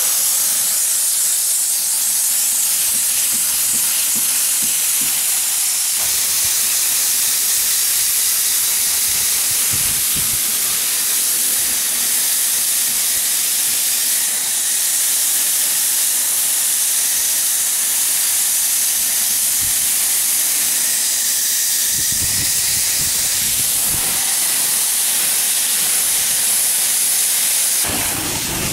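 Water spraying hard from a hose nozzle in a steady hiss, starting abruptly, rinsing a dirty air-conditioner coil.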